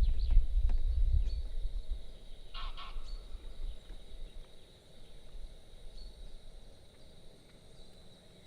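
Wind buffeting the microphone for the first two seconds, then dying away; about three seconds in, a single short honk from a goose-like bird.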